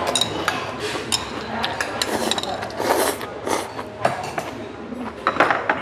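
Metal spoons and chopsticks clinking against stainless steel and ceramic bowls: a series of short, irregular clinks as two people eat.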